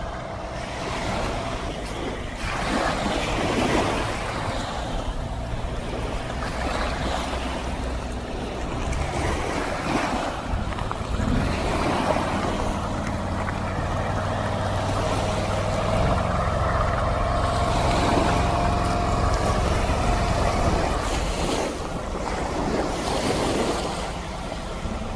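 Amphibious eight-wheeled ATV running through shallow sea water, its engine a steady hum under splashing water and waves, with wind on the microphone. The engine note changes about two-thirds of the way through.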